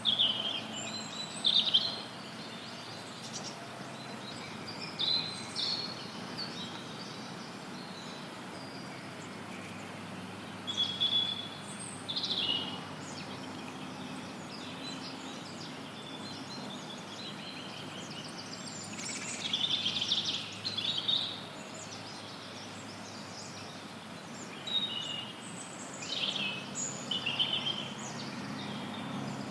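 Wild songbirds chirping and singing in short scattered phrases, heard over a steady hiss of added white noise.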